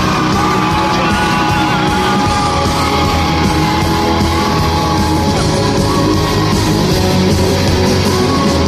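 Live rock band playing a pop-rock song, with a long held note that starts about half a second in and ends after about five seconds.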